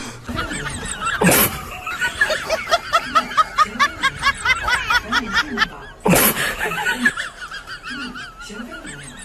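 High-pitched laughter in a rapid run of giggles, about four to five a second, with two sudden loud bursts of noise, one about a second in and one about six seconds in.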